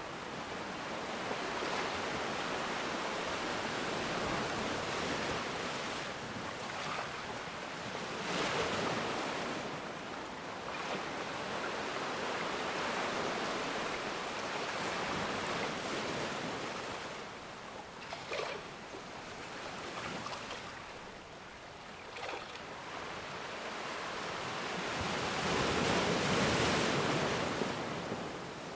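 Ocean waves breaking and washing ashore, a steady rushing surf that swells and ebbs, with the largest surge building near the end.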